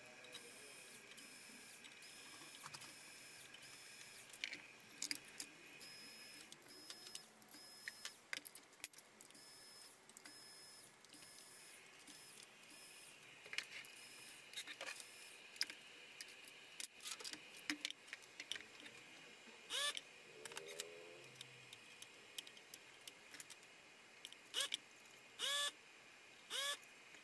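Faint clicks, taps and small metallic jingles of a screwdriver, screws and a circuit board being handled on a workbench, with a few short squeaks near the end.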